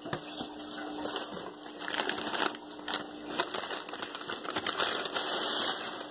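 Hands rummaging in a cardboard shipping box packed with newspaper: irregular rustling and crinkling of paper, with scattered light knocks and scrapes of cardboard.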